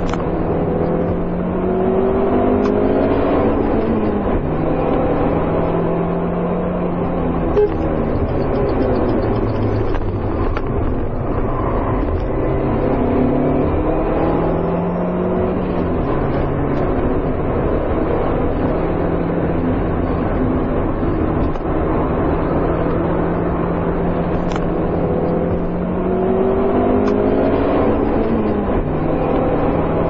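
Car engine sound, running steadily with a rev that rises and falls and repeats about every twelve seconds.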